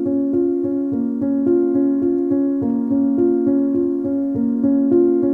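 Background music: a keyboard playing a steady, evenly paced pattern of sustained piano-like notes.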